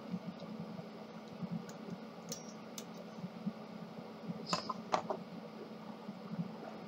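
Small plastic clicks and taps from a toner cartridge and its shutter spring being worked on by hand with tweezers. A few sharper clicks, the two loudest about half a second apart past the middle, over a low steady hum.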